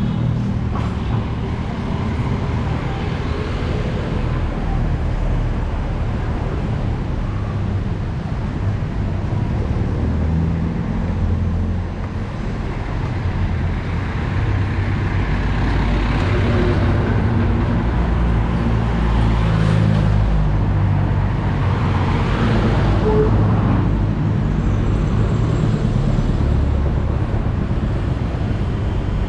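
City street traffic: motor vehicles passing close by, several swelling and fading in turn over a steady low rumble.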